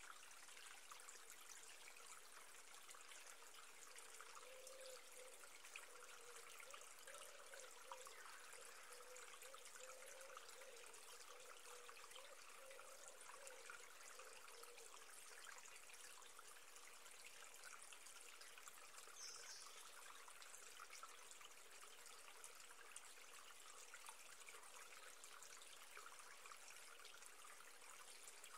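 Near silence with a faint, steady trickle of running water, like a small stream.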